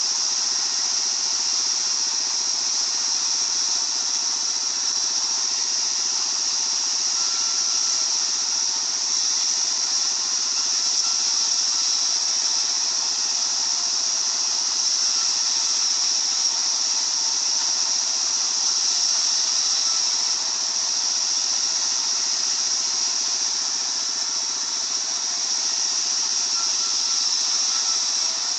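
Circular sawmill running with a steady high-pitched hiss and whine.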